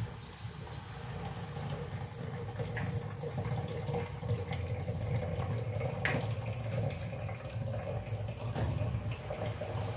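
Kitchen tap running steadily in a thin stream into a stainless steel sink, with one light knock of a dish about six seconds in.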